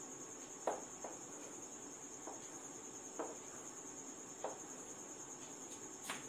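Chalk drawing lines on a chalkboard: about six short, sharp taps and knocks as the chalk strikes and strokes the board, the first the loudest, over a steady high-pitched whine.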